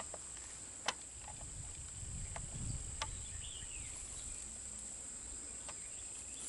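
Steady high-pitched insect chorus, crickets or similar, with a few faint scattered clicks.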